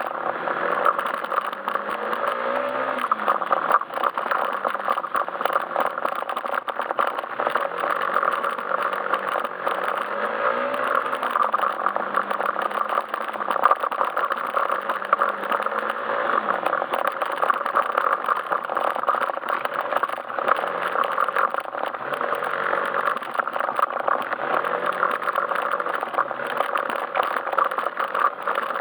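Yamaha Majesty S scooter's single-cylinder four-stroke engine running on the move, its pitch rising and falling several times as the throttle is opened and eased, about two, eleven and sixteen seconds in and again in the last few seconds. A steady rushing noise with frequent small knocks and rattles runs over it.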